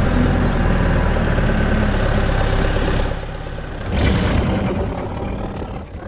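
A vehicle engine running with a low rumble, easing off about three seconds in, picking up again a second later, then fading near the end.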